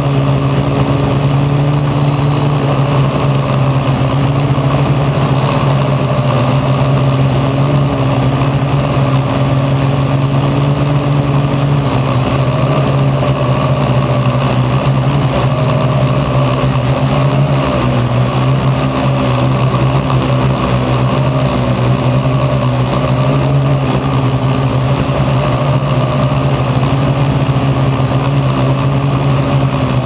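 Parrot AR.Drone quadcopter's four motors and propellers humming steadily, heard up close from a camera mounted on the drone. The pitch wavers slightly as it flies, the motors working under the extra weight of the camera.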